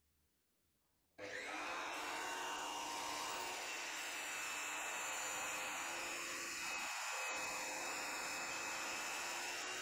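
DeWalt DWS780 12-inch sliding miter saw, fitted with a Freud 120-tooth thin-kerf carbide aluminum blade, cutting slowly through a lubricated 2-inch solid aluminum bar. It is a steady, loud whine with a few high ringing tones held throughout, and it starts abruptly about a second in after near silence.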